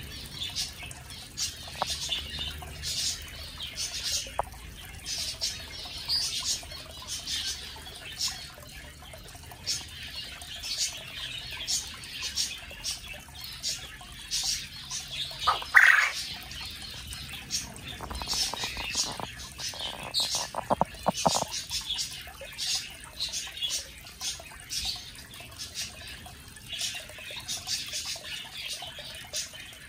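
Japanese quail calling: one short, loud crow about halfway through stands out over a steady scatter of short, high chirps. A few seconds after the crow comes a quick run of low rattling clicks.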